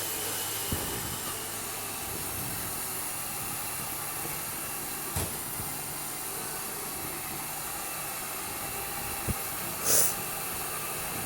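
Roomba Discovery 400-series robot vacuum running, a steady whirring hiss from its motor and brushes over low carpet. A few faint clicks come through it, and a short sharper hiss about ten seconds in.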